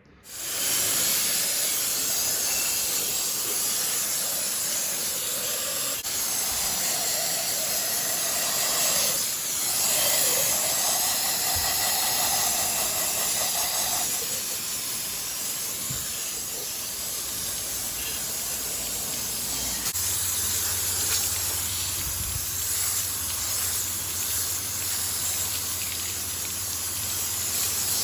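Steady, hissing jet of water spraying onto metal, rinsing degreaser off old chainsaw parts. Its tone shifts around the middle, and a low steady hum joins about two-thirds of the way through.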